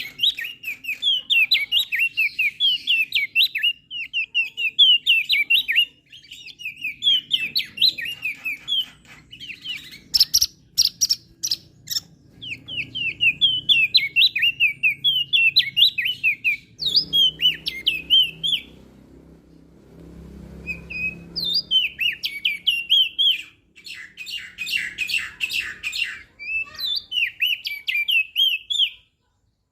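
Crested white-eye (opior jambul) singing: rapid, high chirping phrases in bursts of a second or two with short pauses. A run of sharp, clicking notes comes about a third of the way in.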